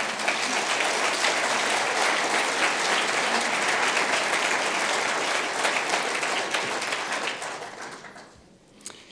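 Audience applauding: a dense, even clatter of many hands clapping that dies away over the last two seconds.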